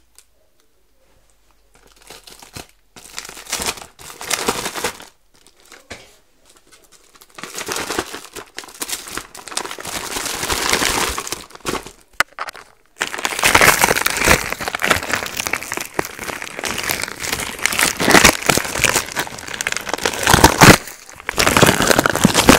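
Camera box packaging being crinkled and torn by hand as the camera is worked out of it. After a couple of near-quiet seconds come scattered bursts of crinkling, which turn continuous and loud about halfway through.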